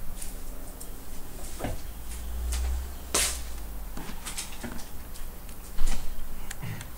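Handling noises at a desk: scattered small clicks and knocks, with a louder short hiss-like burst about three seconds in and a brief low rumble just before it, over a faint steady hum.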